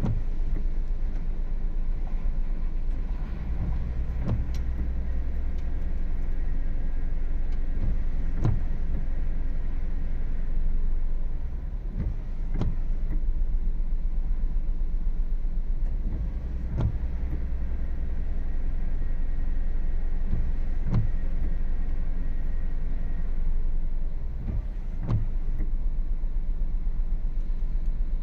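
A car: a steady low rumble with a sharp knock about every four seconds.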